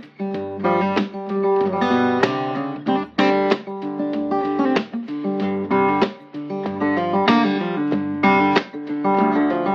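Background music: acoustic guitar playing picked notes and chords, several a second, each note ringing out before the next.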